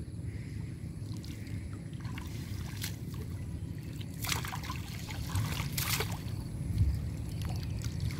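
Water splashing and dripping as a cast net is hauled up out of waist-deep water, with two louder splashes a little after the middle. A steady low rumble runs underneath.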